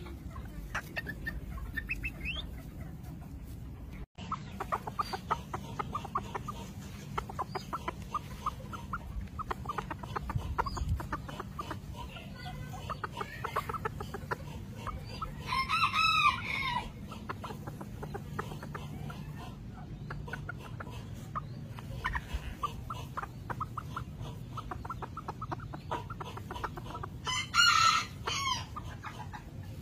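Japanese bantam chickens clucking in quick, continual clucks, with a bantam rooster crowing twice, once about halfway through and once near the end, each crow short, about a second and a half.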